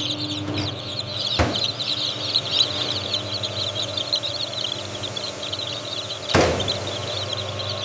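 A crowd of young chicks peeping continuously over a steady low hum, with two sharp knocks, one about a second and a half in and a louder one near the end.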